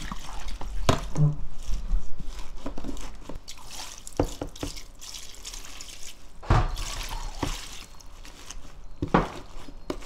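Water poured from a glass jug into a plastic container of salted godeulppaegi greens, splashing and dripping over the leaves as the greens are covered. A few sharp knocks come about a second in, about four seconds in, halfway through and near the end.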